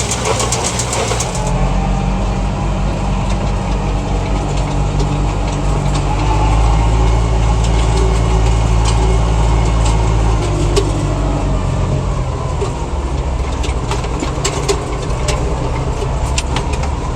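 New Holland TS90 tractor's diesel engine running steadily while driving a New Holland BC5070 small square baler. The engine note is heavier for several seconds in the middle, with scattered sharp clicks from the machinery.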